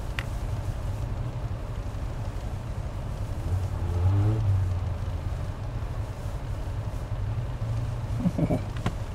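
Lifted Toyota pickup's engine running as the truck works up a snowy rock ledge, the revs rising about four seconds in and then settling back.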